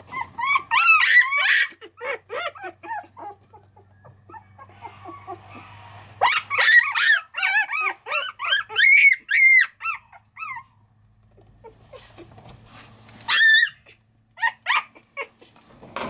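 About month-old Shiba Inu puppies crying in rapid runs of short, high-pitched squeals and whines, each cry rising and falling. There is a loud run in the first two seconds, a longer one from about six to ten seconds in, and a brief sharp one a little past thirteen seconds.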